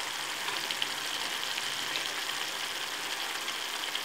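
Thick masala gravy simmering in a pan: a soft, steady sizzle with faint scattered crackles.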